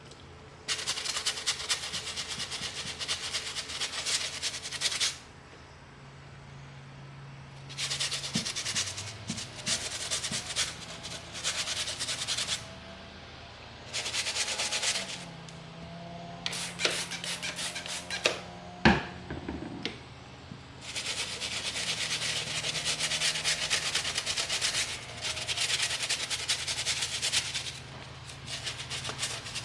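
Rapid rubbing and scrubbing strokes on the leather of a ball glove, coming in spells of a few seconds with short pauses between, as the glove is cleaned or worked with conditioner. A single sharp knock sounds about two-thirds of the way through.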